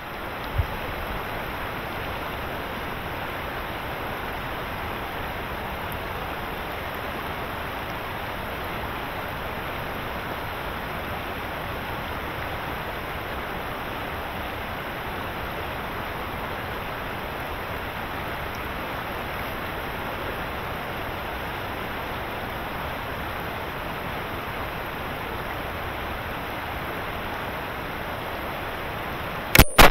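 Steady rushing noise, like wind or running water, with a low thump about half a second in. Right at the end, a single loud gunshot crack from a 20-gauge shotgun rings out and dies away.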